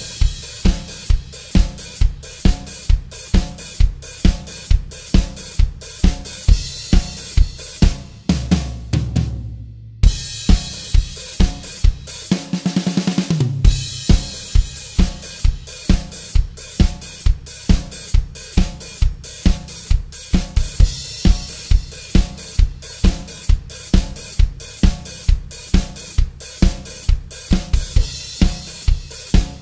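Drum kit playing a steady trot beat on its own: bass drum and snare alternating, hi-hat eighth notes alternating closed and open, and crash cymbal at the start of phrases. A little before the middle the beat stops briefly, then a quick fill of rapid strokes leads back into the groove.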